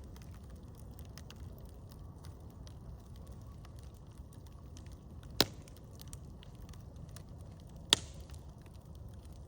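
Campfire crackling faintly over a low rumble, with two sharp loud cracks about two and a half seconds apart past the middle.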